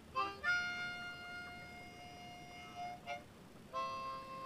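Harmonica being played: a short note, then one long note held for about two and a half seconds, a quick short note, and another held note near the end.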